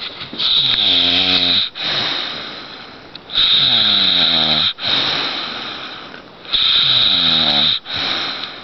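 A man snoring in his sleep: three loud snores about three seconds apart, each followed by a softer breath that fades away.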